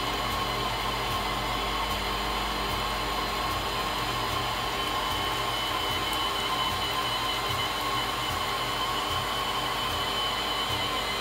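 5-axis CNC machining center running: the spindle and axis drives give a steady whir with a held high whine as the tilted head moves the cutter along a curved groove in a metal block.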